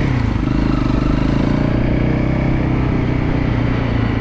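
Motorcycle engine running at a steady pitch while riding.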